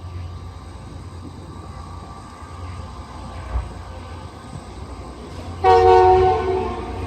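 Aurizon diesel locomotives on a coal train rumbling low, then a loud multi-tone air horn blast about five and a half seconds in, lasting about a second before fading.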